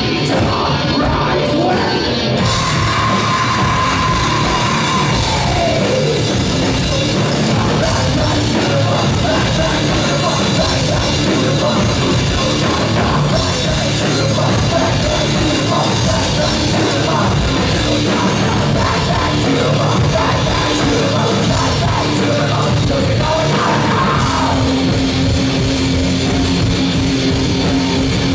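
Live heavy rock band playing loud: drums, guitars and yelled vocals. A held high note slides down a few seconds in, and a steady low note comes in near the end.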